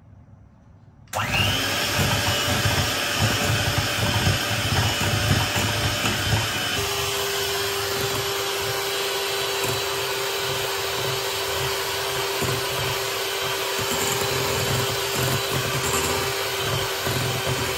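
Electric hand mixer switched on about a second in, running steadily as its beaters whip double cream in a glass bowl. About a third of the way through, a steady whine joins the motor noise, and the mixer stops at the very end.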